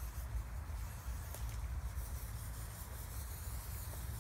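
Light wind rumbling on the microphone, a steady low rumble under a faint even outdoor hiss, with a few tiny ticks.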